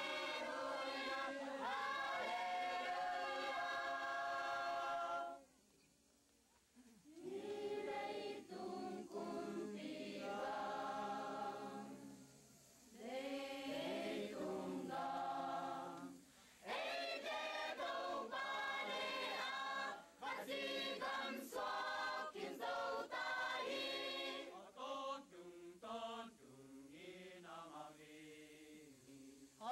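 Mixed choir of men and women singing together without instruments, in long held phrases with short breaks between them.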